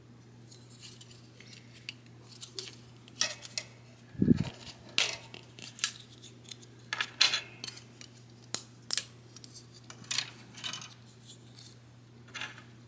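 Small plastic parts of a snap-fit model kit being worked off their frame and handled: a string of light clicks, snaps and scrapes, with a dull knock about four seconds in.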